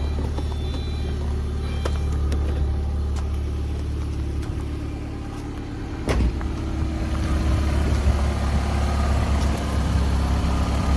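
1990 Mazda Miata's 1.6-litre four-cylinder engine idling steadily on fresh oil, pretty quiet but with a light tick still there. A single knock about six seconds in.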